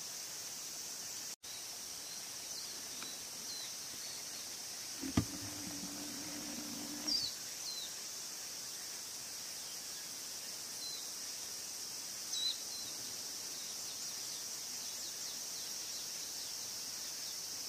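A steady high insect chorus with a few short bird chirps. About five seconds in, a click is followed by a low steady hum lasting about two seconds.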